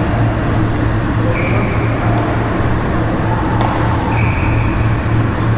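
Steady low hum of a sports hall, with short high squeaks of shoes on the wooden court and a couple of sharp clicks, about two seconds in and again about a second and a half later.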